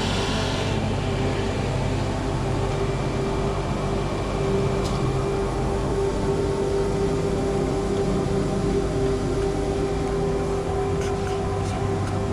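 A workshop power tool's motor running steadily with a constant hum. The hiss of a cut dies away under a second in, leaving the machine running on without cutting.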